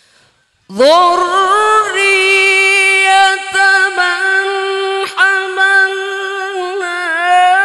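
Male Qur'an reciter (qari) chanting in the ornamented melodic style of tilawah. After a short silence, about a second in, he begins one long, high held note with wavering ornaments and a few brief breaks.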